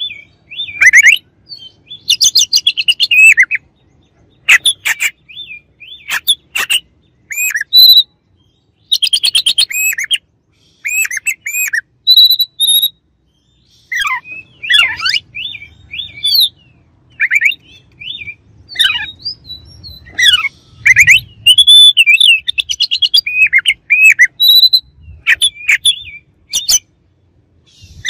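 Oriental magpie-robin (kacer) singing loudly in quick, varied phrases: fast chattering runs of notes mixed with sliding whistles, broken by short pauses.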